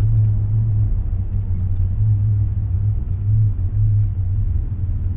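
Low droning hum inside the cab of a Ford F-150 truck while driving, swelling and easing every second or so over road rumble. It is a recurring fault noise that the owner says comes on in cold weather and stops when the truck turns left.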